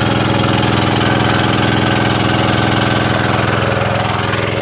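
Diesel engine of a portable water pump running steadily, with a fast, even firing pulse.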